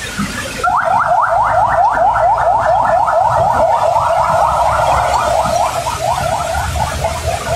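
A vehicle alarm sounding a fast run of rising electronic chirps, about five a second, starting under a second in and fading near the end, over the steady hiss of heavy rain.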